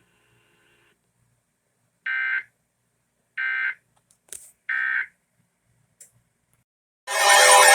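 Emergency Alert System end-of-message signal: three short, equal bursts of digital data tones about a second and a half apart, marking the end of a flash flood warning. Near the end a loud, wavering, siren-like sound starts.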